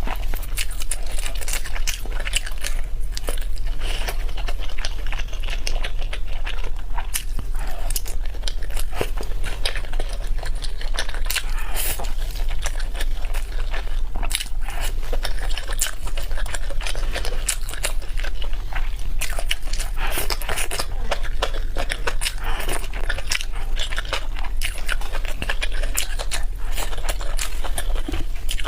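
Close-miked mukbang eating sounds: steady chewing and biting, with many quick wet mouth clicks and crunches, over a steady low hum.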